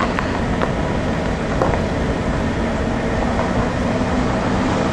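A vehicle running steadily: an even rumble and rush of noise with a faint steady hum and a few small clicks.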